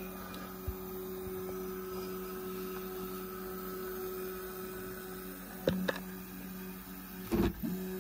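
Stepper motors of a LowRider CNC driving the router down slowly toward a touch plate during a probing routine, a steady electric whine. Two sharp clicks come a little before six seconds in, and near the end a brief louder knock where the whine breaks off and starts again.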